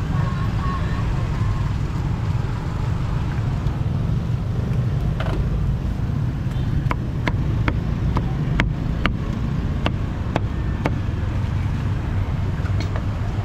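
Steady low rumble of street traffic. Midway comes a run of about nine sharp knocks, roughly two a second, typical of a cleaver chopping roast pork on a chopping block.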